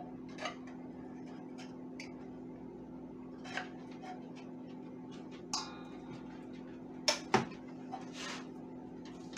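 Metal soup can being opened by hand: small clicks and scrapes, a brief metallic ring about halfway through as the lid comes away, then two sharp knocks a few seconds later. A steady low hum runs underneath.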